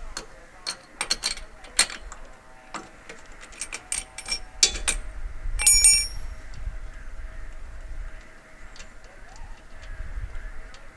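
Metal tool clicks and clinks as a spark plug wrench is fitted and worked on an ATV's spark plug, irregular sharp clicks with one short metallic ring a little past the middle.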